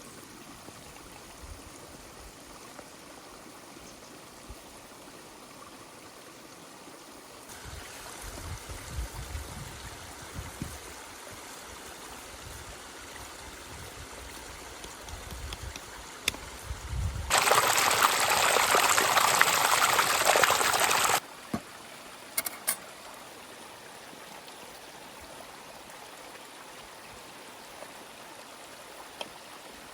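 Steady trickle of running water, with a few low thumps about eight to eleven seconds in. About seventeen seconds in, a loud rushing hiss starts abruptly and cuts off about four seconds later.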